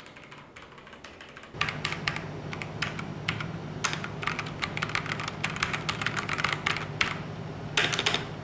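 Fast typing on a Kreo Hive 98 mechanical keyboard with brown (tactile) switches: a run of key clacks, light at first, then a dense, louder stream from about a second and a half in.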